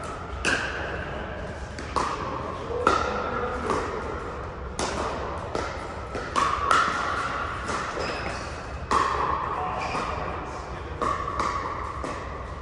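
Pickleball paddles striking a hard plastic ball in a rally: about a dozen sharp pops at uneven gaps of roughly a second, each ringing briefly in the large hall.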